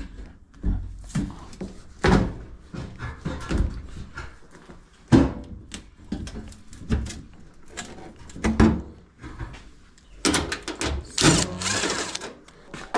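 Knocks, clunks and rattles of a Whirlpool Duet dryer's metal cabinet and panels being handled as it is taken apart, with a busier run of clicking and rattling near the end.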